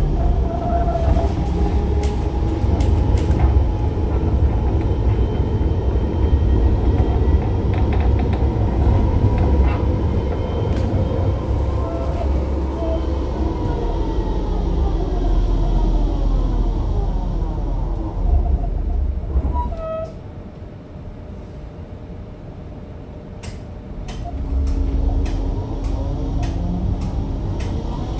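Frankfurt R-type low-floor tram heard from inside the car: running over the rails with a heavy low rumble. The motor whine falls in pitch as it brakes to a halt about two-thirds of the way through. It is briefly quieter at the standstill, then it starts moving again with a steady tone near the end.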